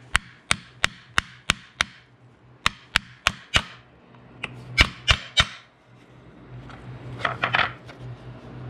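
Hammer tapping a 5/8-inch socket that drives a new ball bearing into a DeWalt wet tile saw guide roller, the socket resting on the bearing's outer ring: sharp metal taps about three a second, in three runs. A few quieter clicks follow near the end as the bearing seats.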